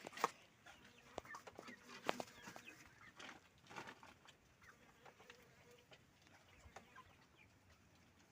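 Faint, scattered short knocks and clicks, most of them in the first half.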